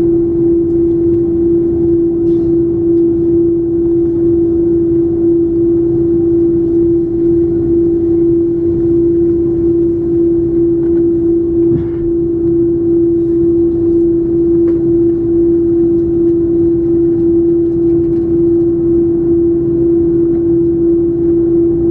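Cabin noise of an Airbus A330-300's General Electric CF6-80E1 turbofans at taxi idle, heard from a seat behind the wing: a steady low rumble with one strong, unchanging hum.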